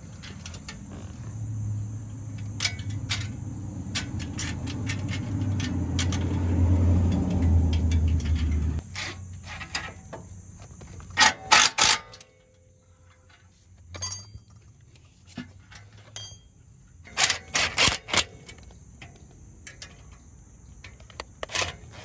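Sharp metallic clicks and clinks of hand tools and exhaust heat-shield clamps, in clusters about eleven and seventeen seconds in. Under them, a low rumble builds through the first nine seconds and stops suddenly, with a steady high insect buzz throughout.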